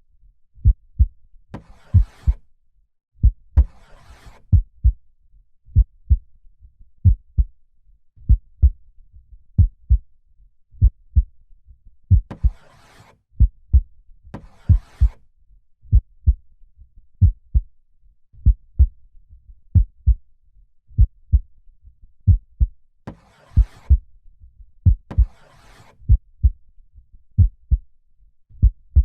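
Steady heartbeat: deep double thumps (lub-dub) repeating evenly. Three times, a slow breath in and out sounds over the beat, at about two seconds, near the middle and a few seconds before the end.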